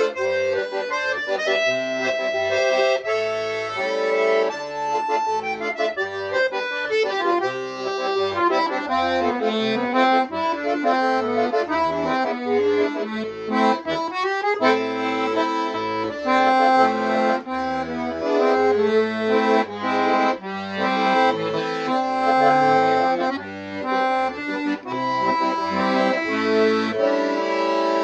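Shuya-made "Romans" bayan, a Russian chromatic button accordion, being played without pause: a melody on the treble buttons over separate bass notes and chords from the left-hand buttons.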